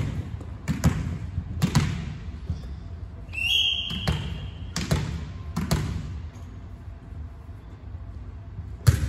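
Volleyball bounced on a hard gym floor, each bounce echoing in the hall: three bounces, a pause, three more, then a loud smack near the end as the ball is hit. In the middle a whistle blows once for over a second.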